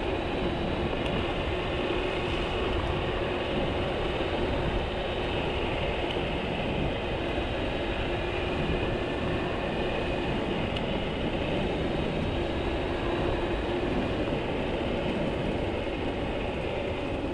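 Steady wind rush on the microphone and tyre rumble from a Dualtron Spider electric scooter cruising near its top speed on a paved path, with a faint steady whine underneath.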